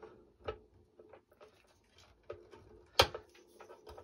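Synthetic gut string being woven through the crosses of a racquetball racket on a stringing machine: soft scattered ticks and rubbing of string on string, with a sharp click about three seconds in.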